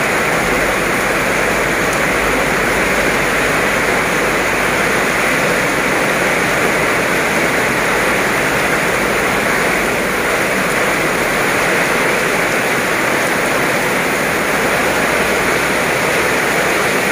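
Heavy tropical downpour: torrential rain pouring steadily onto the road and grass, a dense, even hiss.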